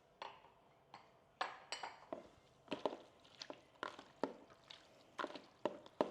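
A dozen or so irregular clicks and taps, with wet handling sounds, as raw seafood mix is tossed and coated with spice powder in a bowl.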